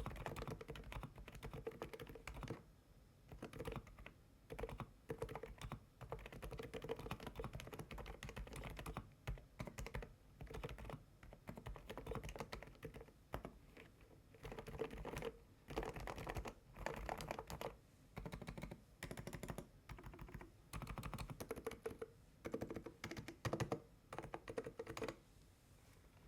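Typing on an AULA F99 Pro silent mechanical keyboard with Leobog Feather switches, in bursts of a second or two with short pauses between; the typing stops near the end.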